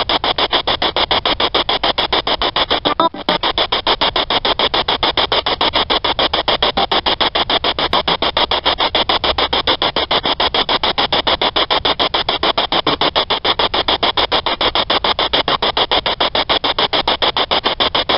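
Spirit box sweeping radio stations through a small speaker: loud static chopped into rapid, evenly spaced pulses, with a brief break about three seconds in.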